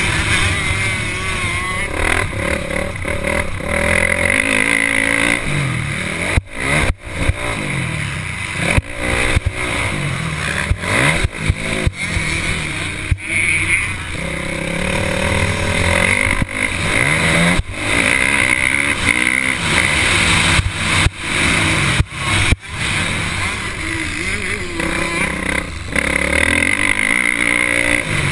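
Motocross dirt bike engine heard from on board, its revs climbing and falling again and again as it races around the track, with a few brief sharp drops in sound along the way.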